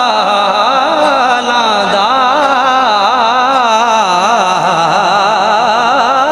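A man singing a devotional naat solo into a microphone: one unbroken melodic line with long, wavering, ornamented notes.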